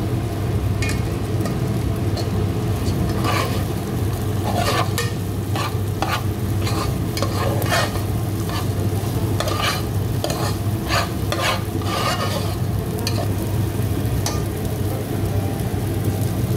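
Rice, coconut, cashews and almonds frying in hot ghee in a pan, a spoon stirring and scraping against the pan in scattered strokes, most of them between about 3 and 13 seconds in, over a steady low hum.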